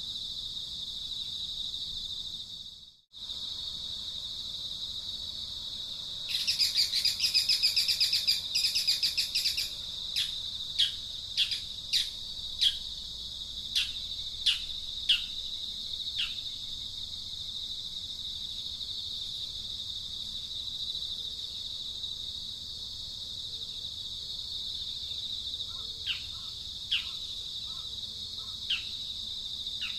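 Steady high-pitched insect drone with birds calling over it: a dense chattering burst for a few seconds, then a string of short, falling chirps that come back near the end. The sound cuts out for a moment about three seconds in.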